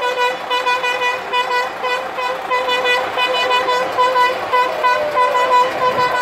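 A horn sounding over and over in short toots at one steady pitch, several a second, over the noise of a cheering crowd.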